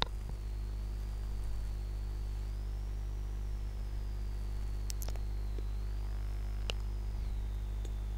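Steady electrical mains hum in the microphone line, with a faint high whine that slowly wavers in pitch. A couple of faint clicks come in the second half.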